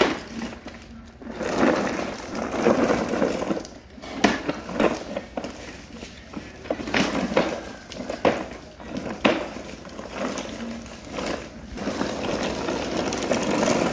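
Hard plastic wheels of children's ride-on toy cars rolling and rattling over hexagonal concrete paving stones, with irregular clacks.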